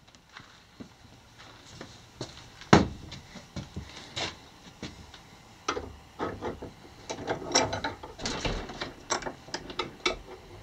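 Steel threaded rod knocking and clinking against a bench vise and workbench as it is set in the jaws and clamped. Scattered sharp clicks and knocks, the sharpest about three seconds in, with a denser run of rattling clicks later.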